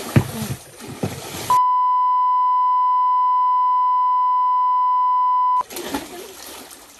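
A steady 1 kHz censor bleep, one pure tone lasting about four seconds, starting about a second and a half in and blanking out all other sound. Water splashing and churning come just before and just after it.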